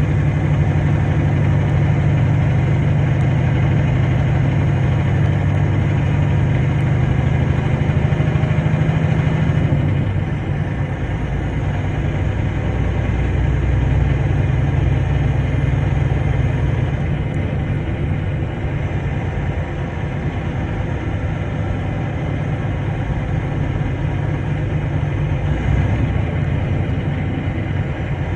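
Vehicle engine drone and tyre and road noise heard inside the cab while driving slowly on a snow-covered highway. It is steady throughout and drops a little in level about ten seconds in.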